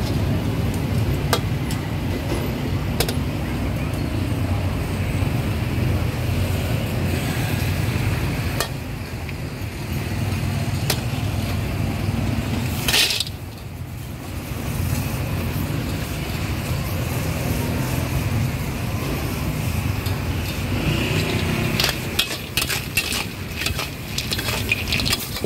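Oil sizzling in a large aluminium wok over a steady low rumble, with a steel ladle scraping and clacking against the pan. One louder clack comes about halfway through, and the ladle clatters quickly near the end as greens are tossed in the wok.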